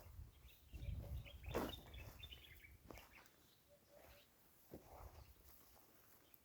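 Birds chirping faintly outdoors, with a quick run of high twittering in the first couple of seconds and a few short calls and clicks after it, over a low rumble.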